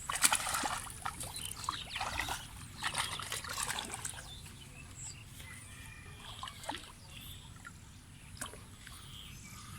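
Water sloshing and splashing in a few quick, irregular bursts during the first four seconds, then dying away to faint background.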